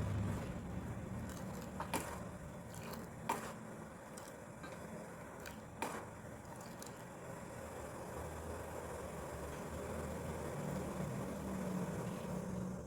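Steady low hum with a few sharp clinks of kitchen utensils in the first half.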